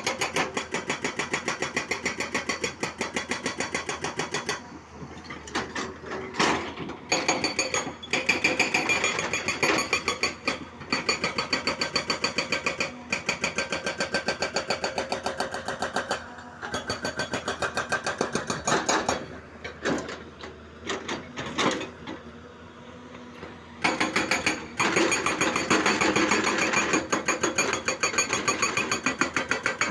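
Hyundai 215 excavator at work: a rapid, even hammering of about four to five strokes a second, which eases off twice for a few seconds.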